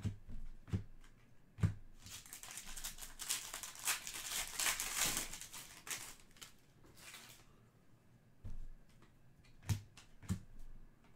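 Foil wrapper of a Panini Prizm trading-card pack crinkling and tearing as it is opened, for about five seconds in the middle. A few soft taps of cards being handled come near the start and near the end.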